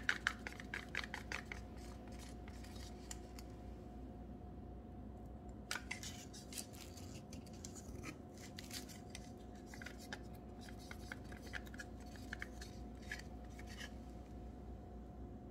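Light plastic clicks and taps of small paint squeeze bottles being handled, a few at the start and a longer scattered run from about six seconds in, over a faint steady hum.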